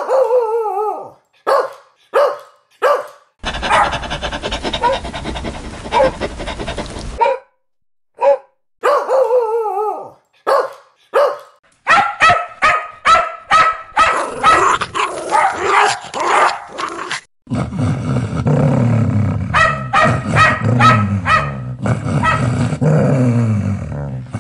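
Dogs barking loudly and repeatedly, in several recordings cut one after another. The barks come singly at first, then as a fast run of barks in the middle, then as deeper barks near the end.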